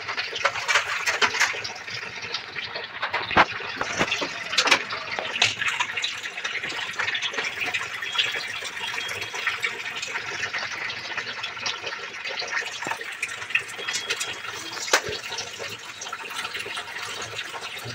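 Water running steadily from a tap into a steel kitchen sink, with a few sharp knocks or clicks about three and five seconds in and again near the end.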